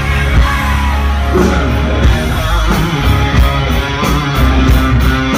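Loud live rock music from a band on stage, with electric guitar over a heavy bass and a steady beat, heard from within the audience.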